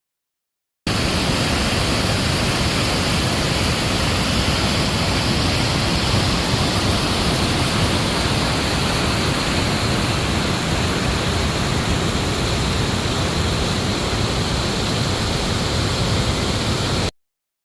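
Waterfall, water pouring with a loud, steady rush. It cuts in about a second in and cuts off abruptly near the end.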